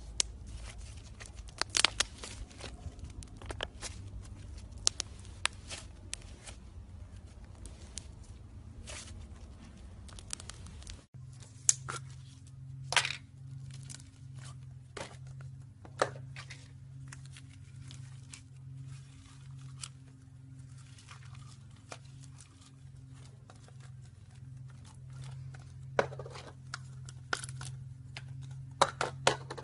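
Hands squeezing, stretching and pulling apart slime: irregular sticky clicks, pops and crackles. A steady low hum runs underneath and changes abruptly about 11 seconds in.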